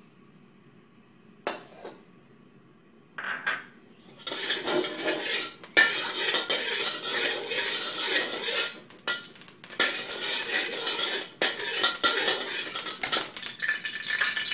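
Metal wok spatula scraping and clattering against a steel wok, spreading hot oil around the pan. It starts with a single knock, then from about four seconds in there is continuous rapid scraping with many sharp strokes.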